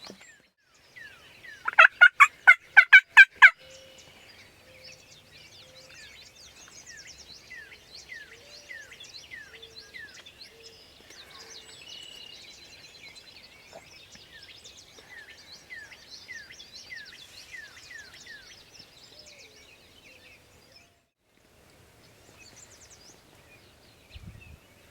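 A wild turkey gobbles once, a loud rapid rattling gobble about two seconds in. Small birds keep chirping in quick repeated notes for much of the rest.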